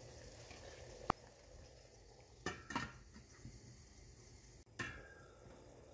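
Stainless steel steamer pot and its metal lid handled as the steamer is covered: a sharp click about a second in, then a few soft knocks and clinks of metal on metal.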